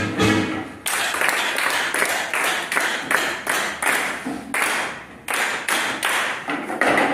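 A group playing a cup rhythm: plastic cups knocked on tabletops and hands clapping together in a steady repeating pattern, about two to three hits a second.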